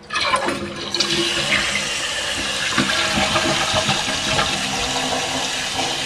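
2008 Glacier Bay two-piece toilet flushing with its tank lid off. Water rushes in suddenly, grows louder about a second in, then runs steadily as the tank drains and refills.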